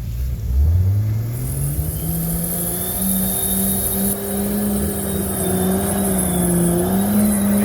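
An off-road 4x4's engine revving hard: the revs climb steeply over about two seconds, then are held high and steady as the vehicle is driven flat out through mud.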